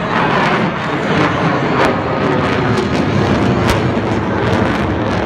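Loud, steady jet engine noise from Blue Angels F/A-18 Hornets flying overhead, with scattered crackles.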